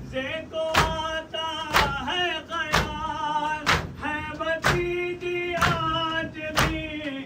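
A voice singing a noha, a Muharram lament, over mourners' chest-beating (matam): sharp hand slaps land about once a second and are the loudest sounds.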